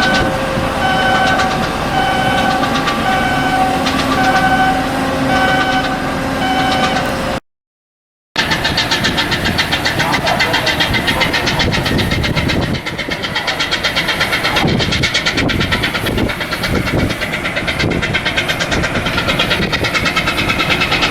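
Repeated electronic beeping, a little more often than once a second, over a steady hum. After a break of about a second, an engine runs with a fast, even beat.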